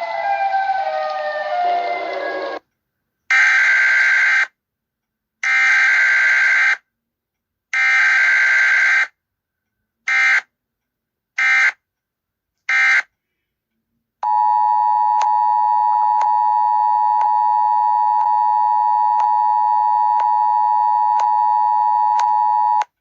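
Siren Head sound effects. A wailing siren with overlapping sliding pitches stops about two and a half seconds in. Then come three long and three short harsh alarm blasts separated by silences. A steady buzzing alarm tone with faint regular clicks follows for about nine seconds and cuts off just before the end.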